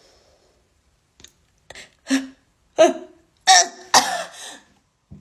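A person coughing and clearing the throat in a run of short bursts starting about a second in, a reflex to a nasal swab being pushed up the nose.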